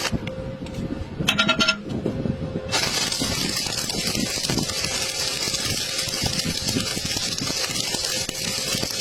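Electric welding arc crackling and hissing in stretches. The arc is off for the first couple of seconds, when a brief tone sounds, then it strikes again and burns steadily.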